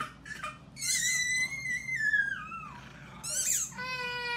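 A long high-pitched squeal that drops in pitch at its end, then a toddler starting to cry near the end.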